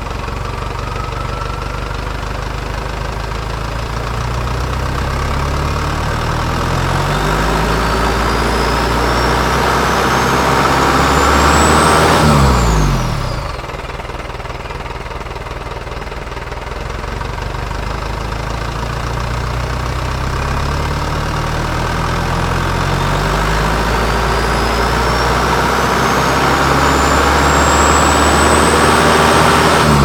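Isuzu Panther's 4JA1 four-cylinder turbodiesel revved up twice, each time climbing slowly for about ten seconds and then dropping back to idle, heard at a small exhaust bypass pipe ahead of the muffler. The turbocharger's whistle rises with the revs to a high pitch and falls away quickly as they drop.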